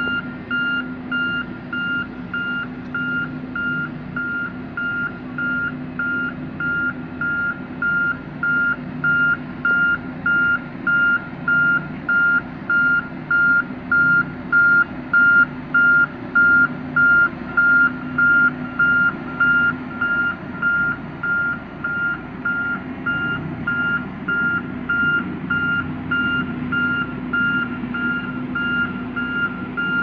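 Reversing alarm beeping steadily at an even pace over the running diesel engines of Sakai SV525D vibratory rollers compacting road fill. The beeps grow louder toward the middle and then fade.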